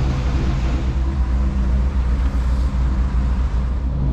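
Dutch barge's inboard diesel engine running steadily at low revs, a deep, even drone.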